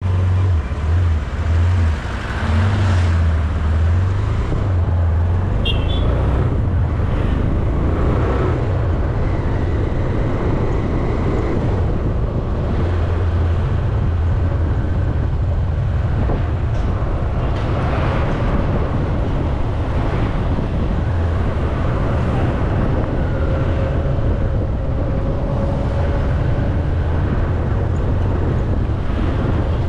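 Riding through town traffic: a steady, loud rumble of wind and vehicle noise on a GoPro Hero12's microphone, with other motorbikes and trucks passing.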